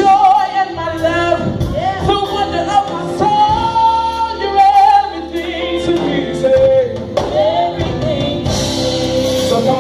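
Live gospel worship music: a woman sings a drawn-out, melismatic ad-lib over the band, with long held, wavering notes.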